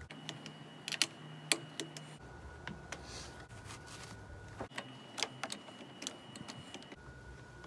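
Scattered small clicks and taps of hands working on a car door-mounted side mirror, as its mounting nuts are started by hand on the studs, with a brief rustle about three seconds in.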